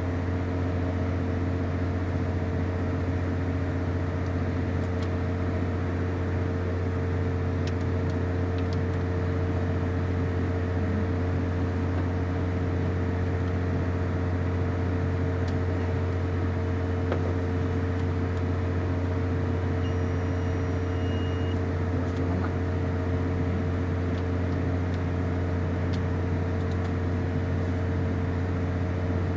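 Steady low mechanical hum with a constant tone over it, unchanging throughout.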